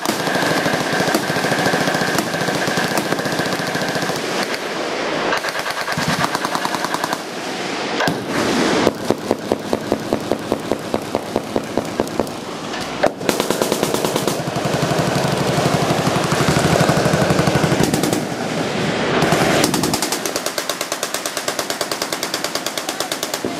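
Several machine guns firing at once in long, overlapping automatic bursts, a continuous rattle of rapid fire. About nine seconds in, a run of louder, evenly spaced heavy shots stands out, about four or five a second.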